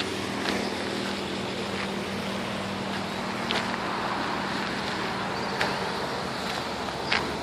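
City street ambience: a steady wash of traffic noise with an engine hum that fades out about six seconds in. A few short, high chirps stand out over it, four times.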